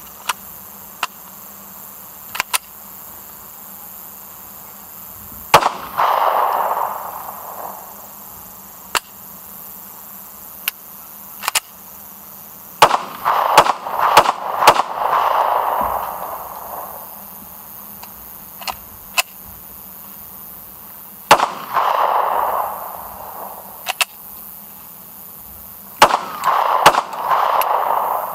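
A 9mm Glock 26 pistol fires about seven single shots at uneven gaps, each trailed by an echo rolling off over the range. Between the shots come lighter clicks and clacks as the pistol is handled; the gun, worn and dirty from being dragged, keeps hanging up on this magazine.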